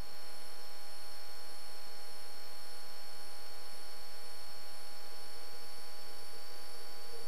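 Steady electrical hiss and hum with a few fixed high-pitched tones on a light aircraft's intercom and radio audio feed.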